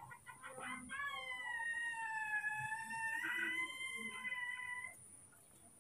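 Baby macaque crying: a few short squeaks, then one long, high-pitched, slightly wavering scream of about four seconds. It is a distress cry, which the keeper puts down to fear of a new cameraman.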